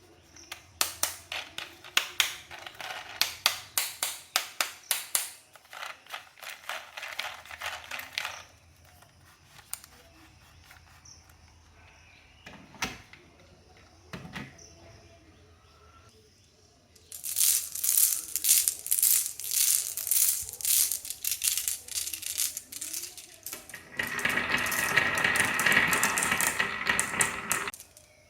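Toy cars clattering down a HABA wooden wavy marble-run slope: fast runs of sharp clacks and rattling, a quiet gap with a couple of single knocks in the middle, then dense clacking and a continuous rattle near the end.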